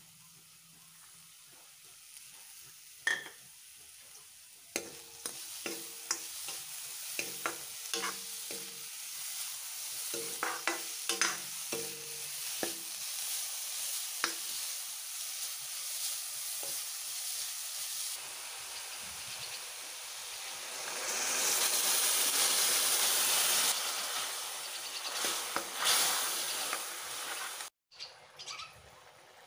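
Grated carrots sizzling in a hot metal kadai while a metal ladle stirs them, its clicks and scrapes against the pan coming thickest in the first half. The sizzle swells loudest for a few seconds past the middle, then drops out for a moment near the end.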